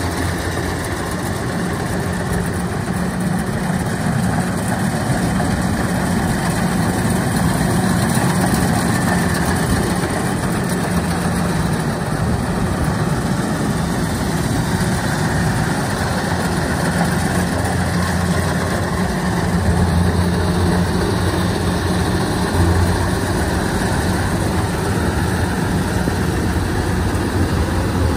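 Kubota DC-93 rice combine harvester running as it cuts rice: a steady, loud diesel engine drone mixed with the noise of the header and threshing machinery, its low hum growing a little stronger about twenty seconds in.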